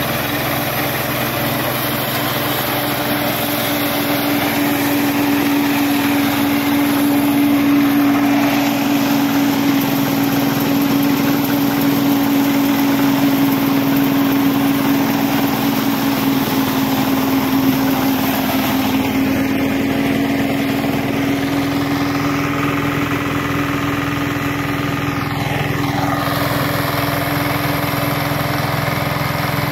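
Kirloskar rice harvester running with a steady engine drone and a strong hum. Its tone shifts a little lower about two thirds of the way through.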